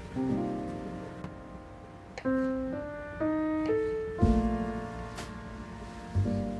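Background piano music: soft chords struck about every one to two seconds and left to ring and fade.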